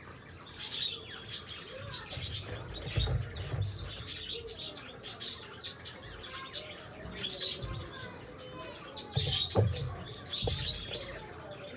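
Small birds chirping over and over, with many short high calls coming in quick clusters. A few dull low thumps come through near the middle and again near the end.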